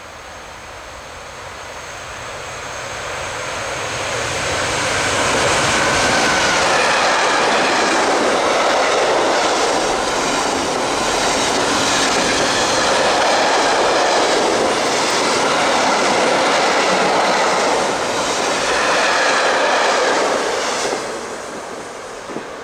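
A container freight train hauled by an NMBS class 28 electric locomotive passes through at speed. Its noise grows over the first few seconds as it approaches, then the wagon wheels clatter steadily and loudly as the wagons go by, and it drops away about a second before the end as the last wagon passes.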